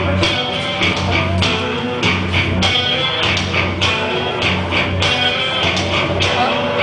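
Rock music with electric guitar and bass over a steady drum beat.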